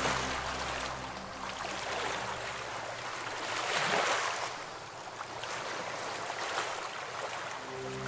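River water rushing, swelling louder about halfway through. Soft background music fades out at the start and comes back in near the end.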